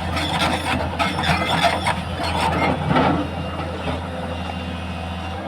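LiuGong 922 excavator's diesel engine running steadily, with repeated metallic clanking and scraping from the working machine, heaviest in the first three seconds.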